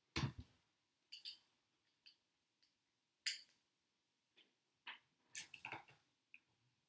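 Scattered light clicks and taps of plastic and metal as an upside-down RC short course truck chassis is handled on a wooden board and a hex driver is fitted to the motor screws underneath.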